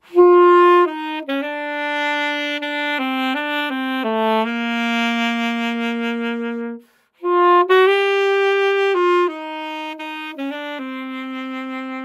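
Alto saxophone playing a slow melody phrase of held notes that step up and down in pitch, with a long low note held from about four and a half seconds in and a short breath break about seven seconds in.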